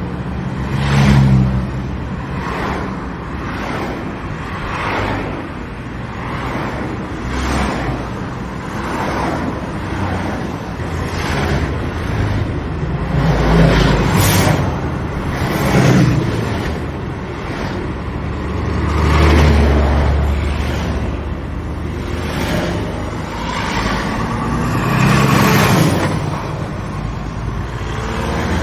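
Heavy, fast road traffic: a continuous stream of vehicles passing close by, a new pass swelling and fading every second or two over a steady tyre-and-engine rush. A few passes are louder with a deeper rumble.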